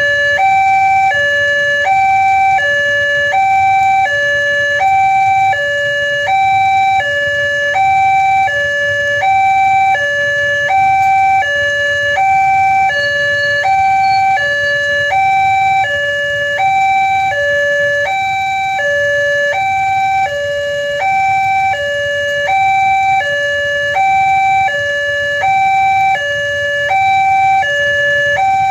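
Railway level-crossing warning alarm sounding its electronic two-tone signal, a higher and a lower tone alternating steadily about once a second. It warns that a train is approaching and the barrier is closing.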